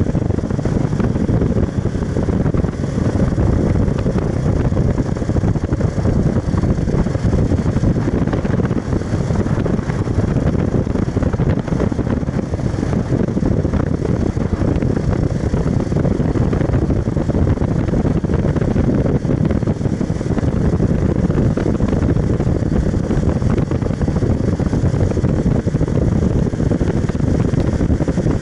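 Motorcycle riding at road speed: steady wind rush over the mounted camera's microphone mixed with the motorcycle's engine running.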